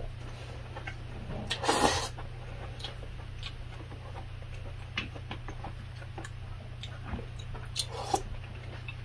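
Close-miked eating: chewing and mouth sounds of rice and vegetable stew, with scattered light clicks of a spoon. There is a louder noisy burst about two seconds in, over a low steady hum.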